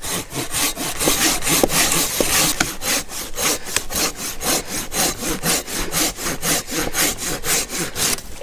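A curved folding pruning saw cutting through a dead log with fast, even push-and-pull strokes, about four a second, stopping near the end.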